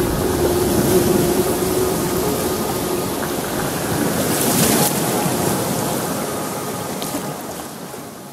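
Stream water rushing over rocks, an even hiss, with a steady low tone under it for the first few seconds; the whole sound fades out over the last couple of seconds.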